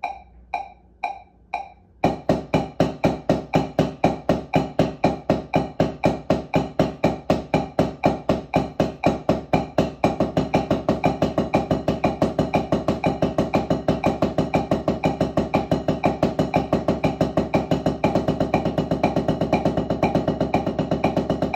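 Wooden drumsticks playing double strokes (two strokes per hand) on a rubber drum practice pad over backing music, after four count-in clicks. The strokes get faster about ten seconds in and again near the end.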